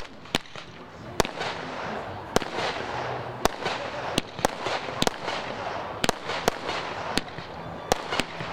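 Fireworks firing tailed shots one after another that burst into small star bursts. About a dozen sharp bangs come roughly once a second, sometimes two close together, over a steady hiss.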